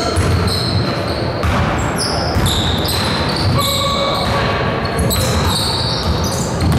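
Basketball game sounds in a reverberant gym: the ball bouncing on the hardwood court amid many short, high squeaks of players' shoes on the floor.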